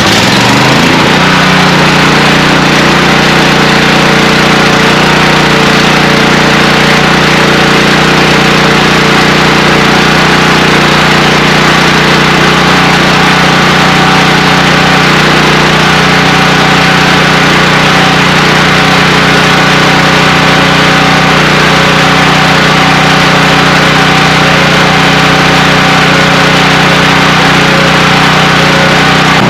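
Champion portable generator's small single-cylinder gasoline engine running steadily just after starting, settling to an even speed about a second in. It runs again after being serviced with fresh oil, a cleaned carburetor and a new spark plug, having been shut down by its low-oil sensor.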